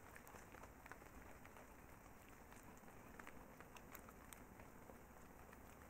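Near silence: a faint hiss with scattered faint, irregular clicks and crackles.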